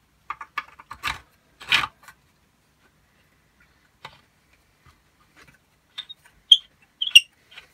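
Hard plastic droid parts and a small screw being handled and fitted together. Short rubbing and scraping clicks come in the first two seconds, then a few sharp little clicks near the end.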